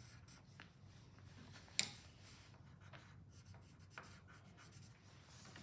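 Wooden graphite pencil scratching faintly on paper as it sketches, with a few light ticks and one sharp click about two seconds in.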